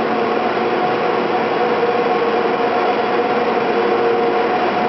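Steady machinery noise of the cable car powerhouse, with the winding sheaves and cables running continuously, a constant drone carrying two steady hum tones.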